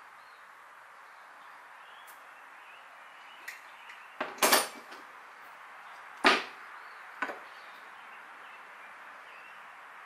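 A few sharp, irregular knocks and clatters of hand tools being picked up and set down on the wood and toolbox, the loudest a little past the middle, over a steady background hiss.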